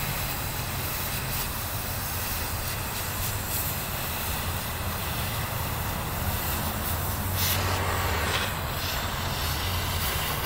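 Oxyacetylene cutting torch cutting through steel plate: a steady hissing rush of the cutting oxygen jet and flame.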